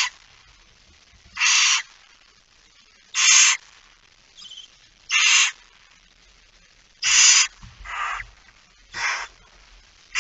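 Barn owl hissing 'snoring' calls: loud rasping hisses of about a third of a second, repeated every couple of seconds, with a few fainter, shorter ones in between.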